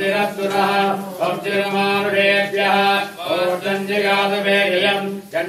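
Vedic Sanskrit mantras chanted by male voices, phrase after phrase with short breaks between.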